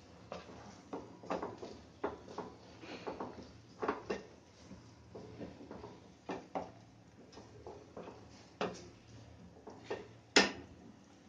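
Wooden spatula stirring sliced onion, capsicum and tomato in a nonstick frying pan: irregular taps and scrapes of wood on the pan, the loudest knock near the end.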